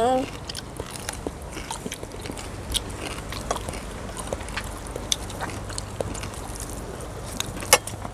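Close-up biting and chewing of crispy deep-fried food: many irregular sharp crunches and crackles, the loudest one near the end.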